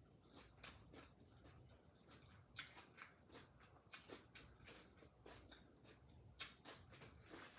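Faint chewing and mouth smacks of someone eating steamed chicken by hand: irregular small clicks several times a second, with a few sharper smacks.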